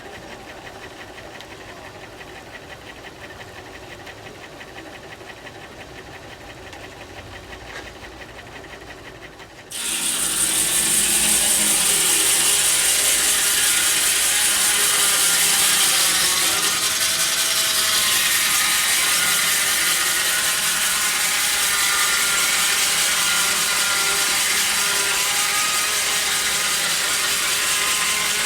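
Steam-powered antique sawmill machinery running with a fine, rapid clatter; about ten seconds in the sound jumps sharply to a much louder, steady high-pitched rasp that holds, as the saw cuts through a log.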